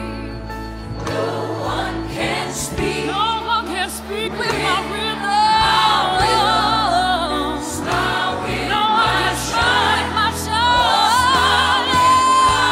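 Gospel-style song: a choir and a lead voice singing wordless runs and held notes with vibrato over an instrumental backing.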